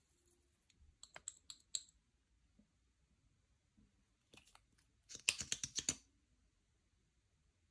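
Slime being pressed and worked by hand, giving off short, sharp clicking pops: a handful spaced out about a second in, then a quicker, louder run of clicks about five seconds in.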